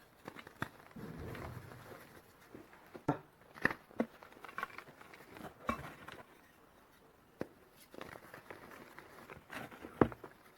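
Reformed gym chalk being crushed and crumbled by hand: irregular crisp crunches and snaps with softer powdery crumbling between them, the sharpest crack about ten seconds in.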